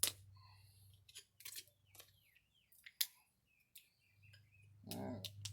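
Hard plastic clamshell packaging being pried and snapped apart with multi-tool pliers: a series of sharp, irregular cracks and clicks with small squeaks of plastic in between. A short vocal sound comes near the end.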